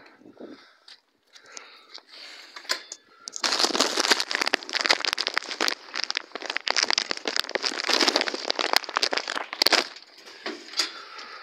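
Handling noise: loud rustling and crinkling full of small crackles as the phone rubs against cloth right at the microphone, starting about three seconds in and stopping near the end.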